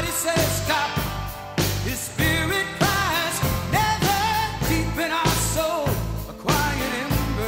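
Rock song with singing over a driving drum beat and bass guitar.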